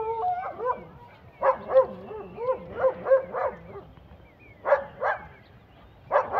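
A dog giving high, wavering whining yelps in several bursts, with two sharp barks about five seconds in.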